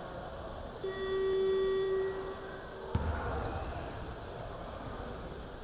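Basketball scoreboard horn sounding one steady tone for about two seconds, then a single thud of a basketball on the hardwood court, followed by short sneaker squeaks on the floor.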